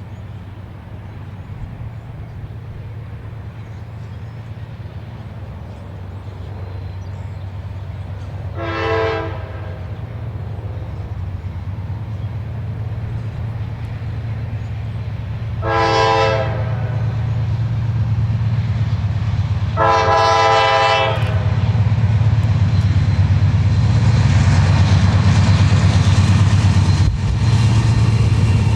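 Diesel freight train approaching, its low engine rumble growing steadily louder, while the locomotive sounds its horn three times: two short blasts about seven seconds apart, then a longer one a few seconds later.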